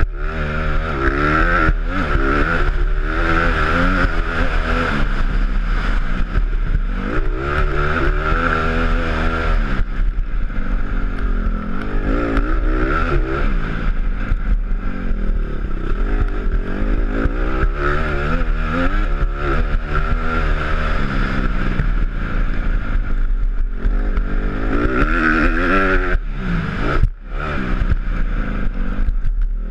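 Honda CRF150 dirt bike's four-stroke single-cylinder engine running hard under load, its pitch rising and falling over and over as the throttle is opened and closed through the gears. The engine note drops briefly near the end.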